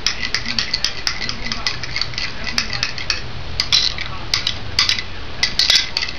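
A utensil stirring honey mustard, mayonnaise and syrup together in a small bowl to make a dressing, with quick, uneven clinks against the sides.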